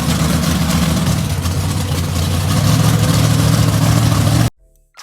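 An engine running steadily and loudly, a low drone with a rushing hiss over it. It cuts off abruptly about four and a half seconds in.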